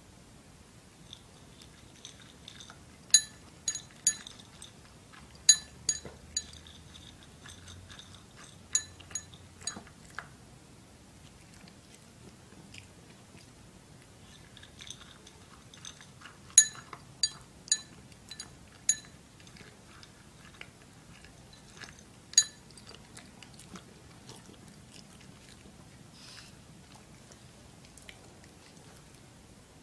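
A toy poodle crunching dry kibble, with sharp crunches in two bouts, the second starting about halfway through. Little is heard near the end.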